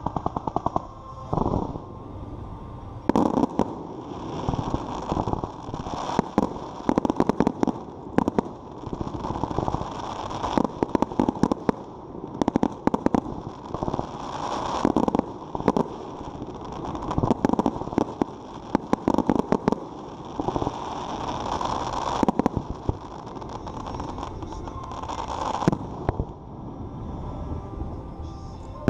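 Fireworks display going off: clusters of rapid sharp bangs and crackling bursts every few seconds over a continuous rumble, easing off near the end.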